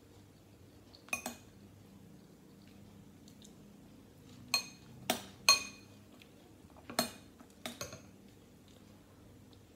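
A metal spoon clinking against a ceramic bowl, seven or so short ringing clinks spaced irregularly, the loudest a cluster around the middle.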